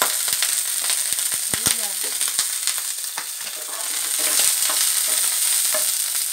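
Sliced ginger sizzling in hot cooking oil in a pan, with clicks and scrapes of a plastic spoon stirring it against the pan. The sizzle swells a little past the middle.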